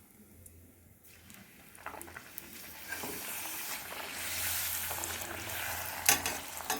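Puris frying in hot oil: a sizzling hiss that starts faintly about a second and a half in and grows much louder, with a couple of sharp clicks near the end.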